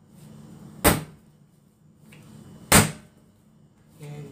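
Ball of yeasted bread dough slapped down hard onto a silicone mat during slap-and-fold kneading: two loud slaps about two seconds apart, with soft dough-handling noise between them.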